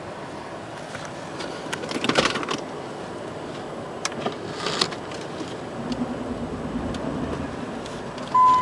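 Clicks and rattles of handling keys and controls inside a Jeep, over a steady background hum. Near the end the Jeep's seatbelt warning chime starts, a steady high tone.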